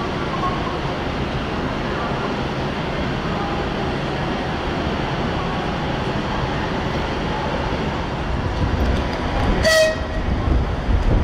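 Steady railway-station background noise, with the low rumble of an electric locomotive swelling near the end. About ten seconds in, the locomotive gives one short, high whistle blast.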